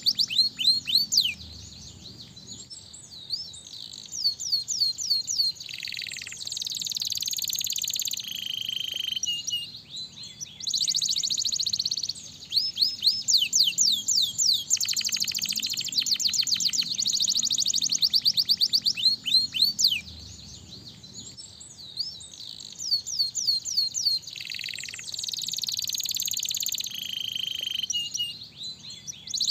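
Domestic canary singing a long song of rapid trills and quick sweeping notes in phrases with short breaks; the same sequence of phrases comes round again about halfway through.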